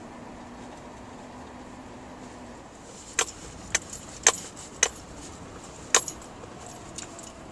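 Car-cabin noise of a car rolling slowly along a gravel road, with five sharp clicks in the second half, most of them about half a second apart.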